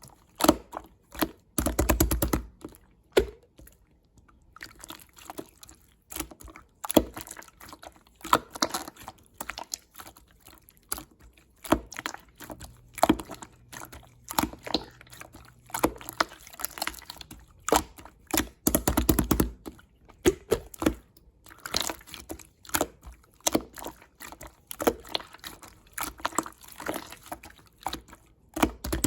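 Clear slime being squished and pressed by hand: wet clicks and small pops, with two longer stretches of rapid squelching, about two seconds in and past the middle.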